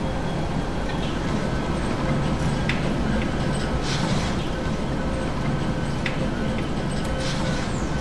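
Meat-packaging line machinery and conveyors running: a steady mechanical hum and rumble with a few faint clicks.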